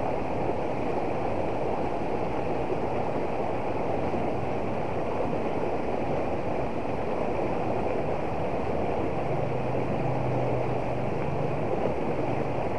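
Shallow stream running over rocks: a steady rush of water.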